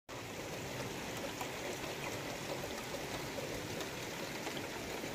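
Steady rain falling on a grassy yard and trees: an even hiss with small ticks of drops, at a constant level.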